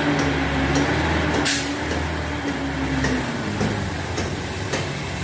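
Diesel dump truck's engine running steadily under load as its hydraulic hoist tips the loaded bed up to dump. A brief sharp knock comes about a second and a half in, and the deep low rumble eases after about three seconds.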